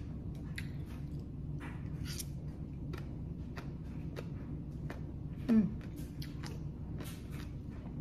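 A person chewing a mouthful of green papaya salad (som tam), with many small crisp clicks of the chewing throughout. About five and a half seconds in, a brief voiced hum from the eater, falling in pitch, is the loudest sound.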